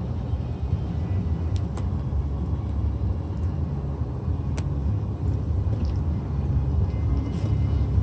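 Steady low rumble of a car driving slowly, engine and tyres on wet pavement, with a few faint ticks.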